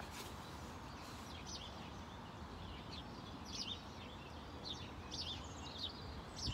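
Small birds chirping in short, high calls about once a second over a steady low background noise.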